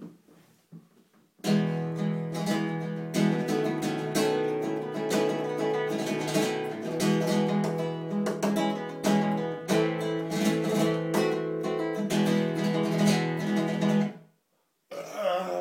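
Acoustic guitar played in flamenco rasgueados: rapid fanned finger strums of chords, loud and dense. It starts about a second and a half in and stops abruptly about fourteen seconds in.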